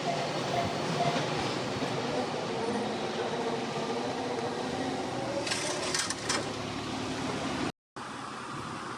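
A train running through a level crossing while the crossing's electronic warning alarm repeats a short tone about twice a second, with a few sharp squeals or clicks from the train a little after halfway. Near the end the sound cuts out for a moment and gives way to a steady rushing noise.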